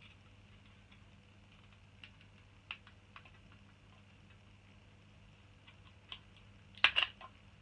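Light plastic clicks and taps as hands pry apart the plastic case of a Next mini HD satellite receiver, with a cluster of louder sharp snaps near the end as the case comes open.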